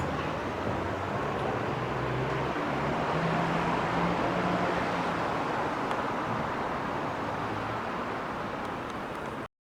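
Busy city road traffic: car engines running and tyre noise, slightly louder midway. It cuts off abruptly about nine and a half seconds in.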